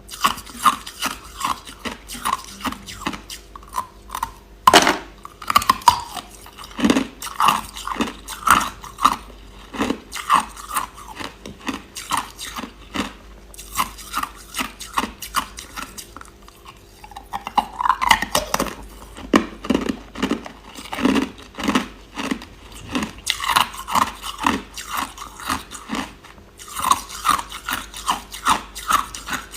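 Hard, clear crushed ice being chewed, crunch after crunch at a few crunches a second, with a brief lull about halfway through.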